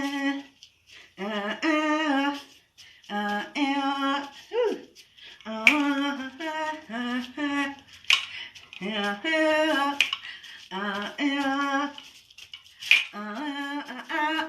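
A woman singing a wordless tune to herself in short phrases with held notes, with a few sharp clicks between them.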